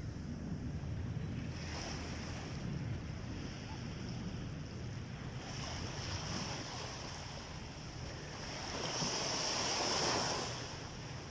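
Sea waves breaking and washing up a beach, with a larger wave swelling about nine seconds in and easing off near the end.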